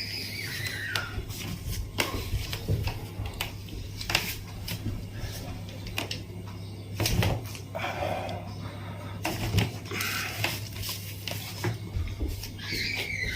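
Sharp clicks and knocks, a few seconds apart, from hands and a treatment table during a chiropractic adjustment, over a steady low hum.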